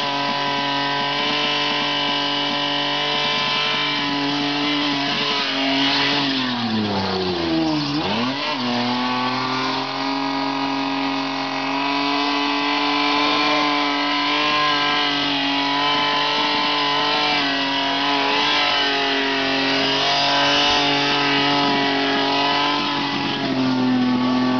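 Toyota Corona's engine held at high revs while the rear tyres spin in a burnout. About six seconds in the revs fall sharply, and two seconds later they climb straight back up and hold high.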